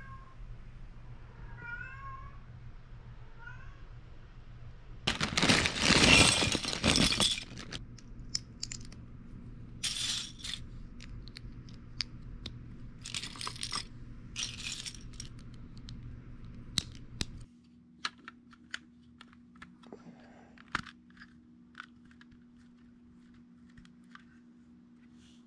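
Loose LEGO pieces rattling and shuffling as hands rummage through a pile of bricks, loudest about five to seven seconds in, with shorter bursts after. In the later part come many small sharp clicks as bricks are pressed together.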